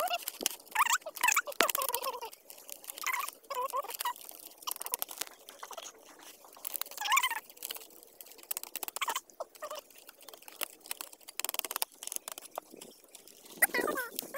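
Dry bamboo strips clicking and crackling as they are handled and trimmed in a woven amakan mat, with repeated bird calls that glide in pitch in between.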